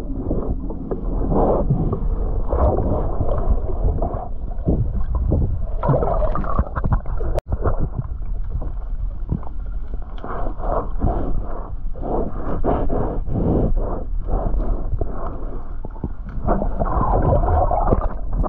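Muffled underwater noise from a camera held below a sailboat's waterline: water sloshing and gurgling in uneven surges while a rag is scrubbed over the hull to wipe off slime. There is a brief break about seven seconds in.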